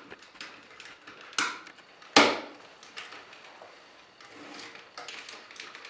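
Hard plastic action-figure parts of a Power Rangers Samurai Megazord and Clawzord toy being handled and fitted together: scattered light clicks, with one sharper click and then a loud snap a little over two seconds in as a piece locks into place.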